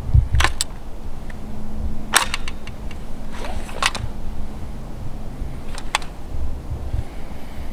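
A few sharp metallic clicks and a short rattle from a CO2 BB-gun replica Tommy gun being handled and readied: two clicks about half a second in, more around two seconds and three and a half to four seconds, one near six seconds. A low wind rumble on the microphone underneath.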